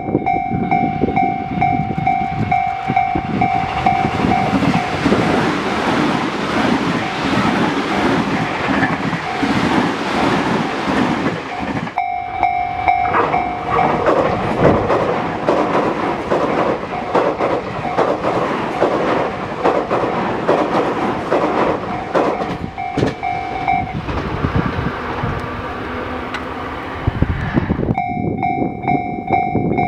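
Japanese level-crossing warning bell ringing as Tobu Tojo Line electric commuter trains pass close by, wheels clattering over the rail joints. The train noise starts about two seconds in, dips briefly about twelve seconds in, and stops a couple of seconds before the end, leaving the bell ringing.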